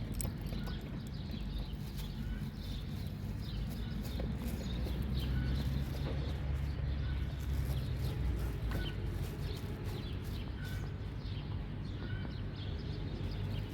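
A dog eating: quick, irregular clicks and crunches of chewing over a steady low rumble.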